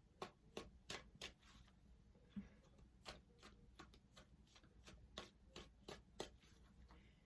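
Tarot cards being shuffled by hand: a faint, irregular run of soft clicks and taps, two or three a second.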